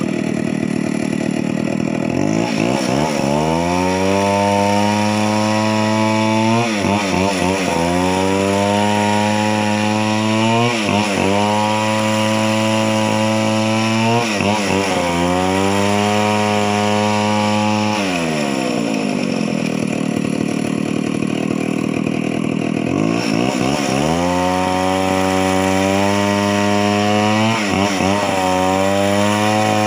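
Two-stroke chainsaw engine running at high revs in long stretches, dipping briefly every few seconds. About two-thirds of the way through it drops back to a low speed for several seconds, then revs up again.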